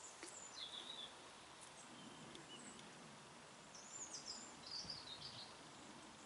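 Faint small-bird chirps over a quiet background hiss: a few high chirps about half a second in, then a short cluster of chirps around four to five seconds in.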